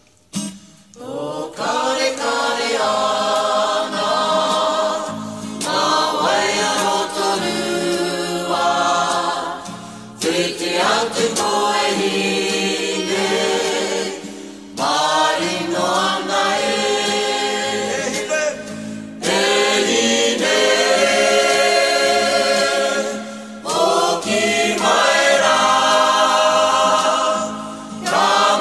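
Choral music: a choir singing in long phrases, with brief pauses between them.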